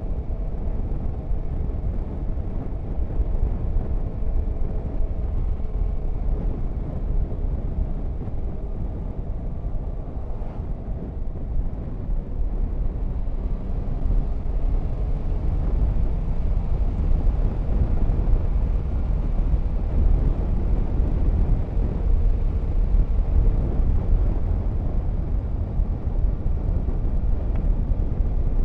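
Motorcycle riding at speed: low wind rumble on the microphone over a steady engine drone.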